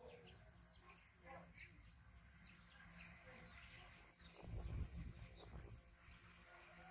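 Faint bird chirping in the background: a quick run of short, high, falling chirps over the first few seconds. A low thump comes about four and a half seconds in.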